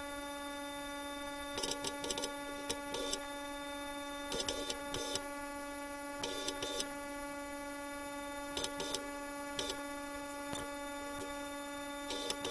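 Welding machine's steady electrical hum, broken by several short bursts of arc crackle as the 1/8 inch gap around a fitted piece is tacked and filled.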